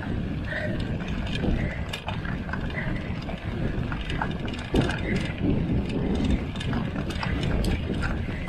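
Mountain bike being ridden over rough ground: a steady low rumble with scattered rattles and clicks from the chain and the ticking freewheel hub.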